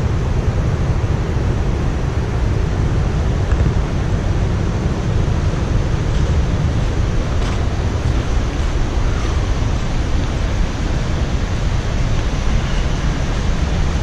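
Steady, dense rushing of water from the Snake River's falls and rapids at Shoshone Falls, heaviest in the low end.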